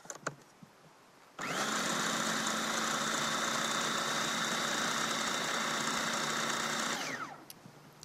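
Electric food processor blending the dill pesto: the motor starts suddenly about a second and a half in and runs steadily with a high whine for about five and a half seconds. It is then switched off and winds down with a falling pitch.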